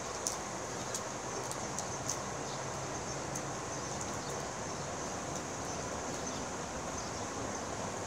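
Grilled prawn being peeled by hand: a few small crackles and snaps of shell, mostly in the first couple of seconds, over a steady outdoor background with a high insect drone.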